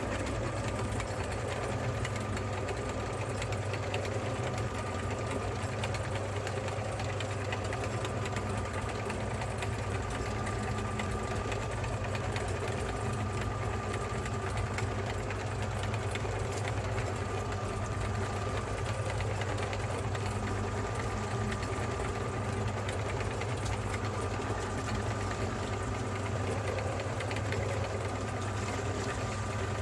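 Electric meat grinder's motor running steadily, a constant hum with a thin steady whine above it.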